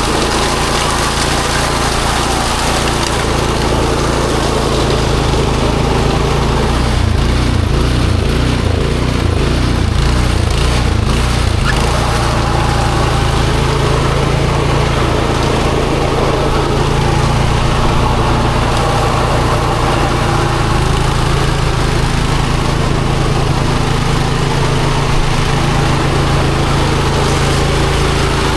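Small gasoline snowblower engine running steadily, its note wavering for a few seconds in the middle.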